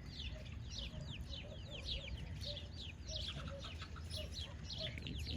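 Chickens: a rapid stream of high, falling peeps from chicks, with soft low clucks beneath.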